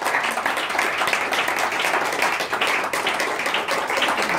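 Audience applauding: many people clapping at once, dense and even in level.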